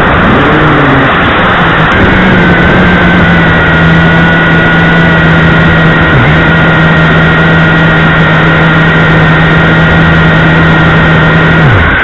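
JRC H8C quadcopter's motors and propellers running in flight, picked up by its onboard camera: a loud rushing noise with a steady low hum and a higher whine. The hum dips briefly about halfway and falls away near the end as the throttle changes.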